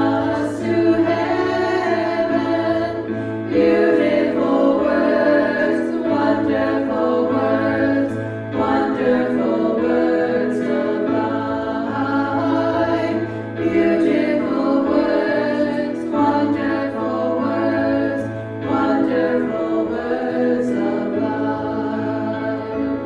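Many voices singing together in a worship song, over a sustained low accompaniment that changes chord every few seconds.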